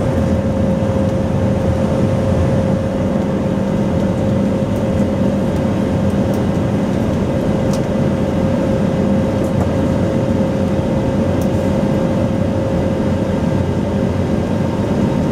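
Steady cabin noise of an Airbus A321neo, its engines and airflow making an even rumble with a constant hum and a higher steady tone.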